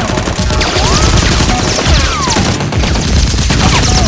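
Rapid automatic gunfire sound effects, with several falling whistles like bullet ricochets, over background music.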